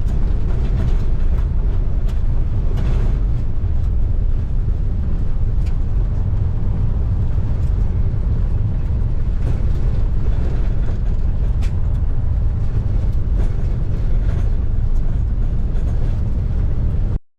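Motorhome rolling down a dirt road, heard from inside the cab: a steady low rumble of engine and tyres with scattered clicks and knocks. It cuts off suddenly near the end.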